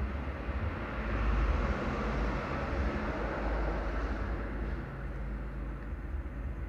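Steady low rumble and hiss of background noise, swelling about a second in and easing off after about four seconds.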